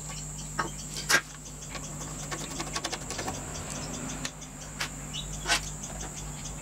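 Small metal clicks and taps from a hex driver working small screws and an aluminium collar being fitted against a steel plate on a D-bit grinder. The sharpest click comes about a second in, with a quick run of faint ticks around the three-second mark and a few more clicks near the end.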